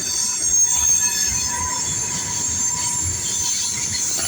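Norfolk Southern mixed freight train cars rolling past, their steel wheels squealing on the rails in several steady high-pitched tones over a low rumble.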